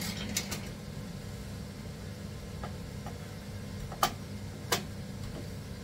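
A wooden rolling pin knocks sharply twice on the worktop, about two-thirds of a second apart, over a steady low hum.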